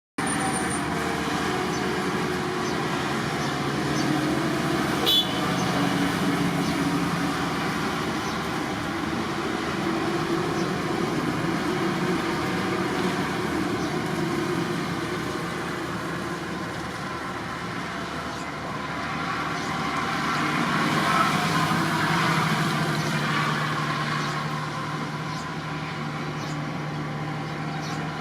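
Kubota DC105X combine harvester's diesel engine running steadily, its pitch shifting slightly as the machine moves. A single sharp click about five seconds in.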